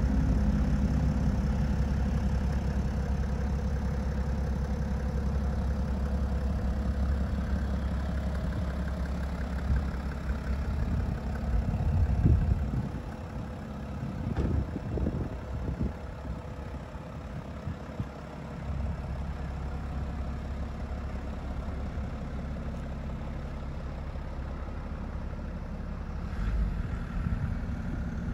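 BMW 640d's 3.0-litre twin-turbo straight-six diesel idling steadily, with a few brief louder low rumbles about halfway through.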